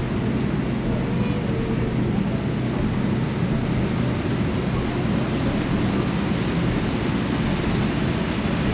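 Sightseeing boat's engine running with a steady low drone.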